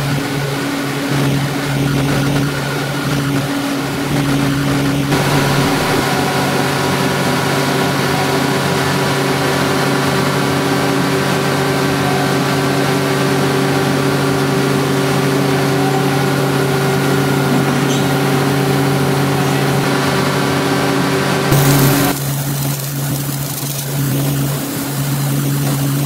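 Steady running hum and clatter of softboard mill machinery on the wet-forming line, with a low droning tone throughout. The mix of machine noise shifts abruptly about 5 seconds in and again about 22 seconds in.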